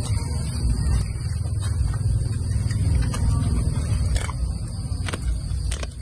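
A dog eating bones and rice from a plastic tub, with several sharp clicks of teeth on bone and plastic, over a steady low rumble and a constant high-pitched whine.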